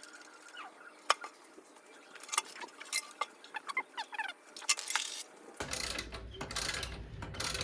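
Scattered sharp metallic clicks and taps of hand tools working on motorcycle parts, with birds chirping faintly in the background; about two seconds before the end a denser, steady clattering and rustling of work noise starts.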